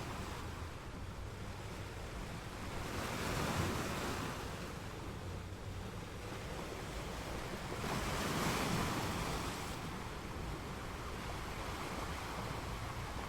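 Ocean surf: waves washing in over a steady rush of water, with two waves swelling louder, one a few seconds in and one past the middle.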